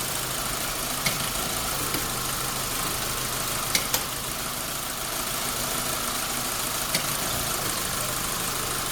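Chevrolet Zafira with automatic transmission idling steadily. About five short, sharp knocks come at uneven intervals: the clunk heard when engaging gears, which the owner puts down to a faulty engine mount.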